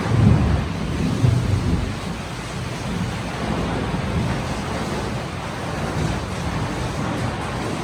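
Steady heavy rain, with a low rumble of thunder dying away over the first two seconds.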